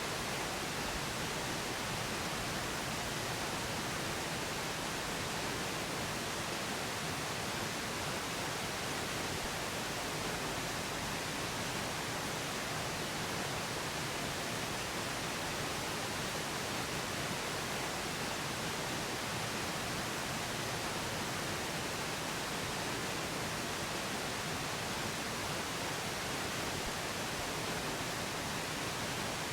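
Steady pink noise: an even, unchanging hiss spread across the whole range, used as a masking bed for a subliminal recording.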